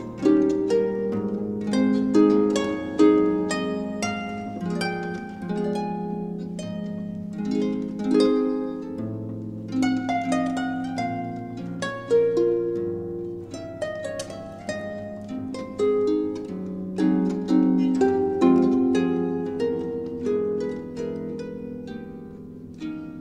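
Background music of plucked, harp-like string notes in a flowing melody over held low bass notes.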